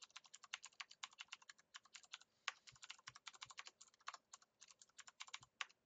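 Faint, quick keystrokes on a computer keyboard, typed in short runs with brief pauses between them as a string of figures is entered to be added up.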